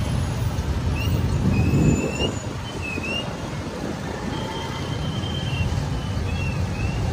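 Steady city street traffic rumble, with one vehicle passing louder about two seconds in. A few short, high chirps come through over it.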